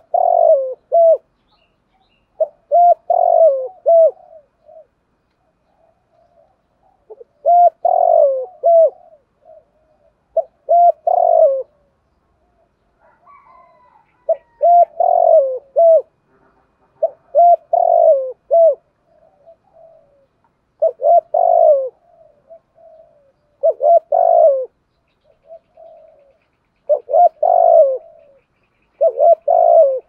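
Spotted dove cooing: about ten short phrases, each of several quick, low coos, repeated every two to four seconds.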